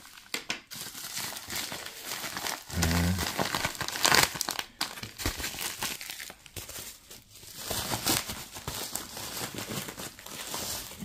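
Parcel packaging crinkling and tearing as it is opened by hand, a busy run of crackles and short rips, loudest about four seconds in.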